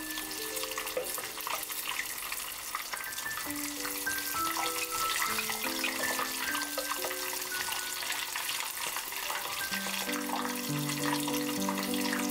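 Battered tiger prawn deep-frying in a pot of hot oil: a steady crackling sizzle of bubbling oil. Background music plays over it, a note-by-note melody that fills out with lower notes about ten seconds in.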